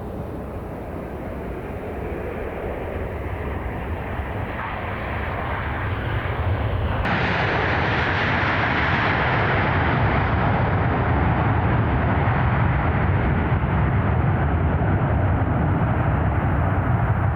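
An airliner's jet engines, a rushing rumble that grows steadily louder over the first half as the plane approaches and then holds loud.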